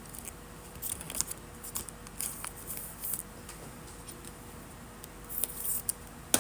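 Trading cards and their plastic and foil packaging being handled: scattered light clicks and crinkling, busiest near the end.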